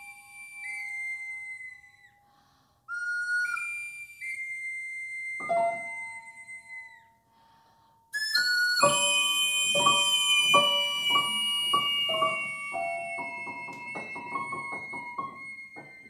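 Contemporary chamber music: high, held piping tones that sag slightly in pitch, joined about halfway through by repeated struck notes on an out-of-tune upright piano. The struck notes start at about two a second and quicken before everything stops near the end.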